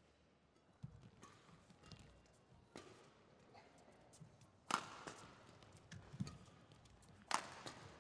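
Badminton rackets striking the shuttlecock in a doubles rally: a few sharp smacks at uneven intervals, the loudest about halfway and near the end, with low thumps of players' footsteps on the court between them.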